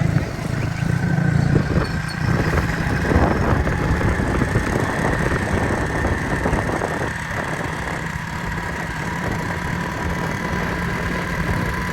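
A motor vehicle engine idling steadily, with a faint steady whine above it.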